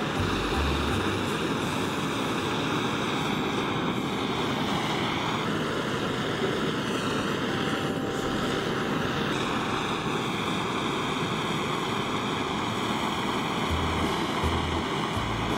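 Handheld gas torch burner running with a steady hissing roar, its flame played over oil-coated steel briquette tongs to burn the oil on and blacken the metal.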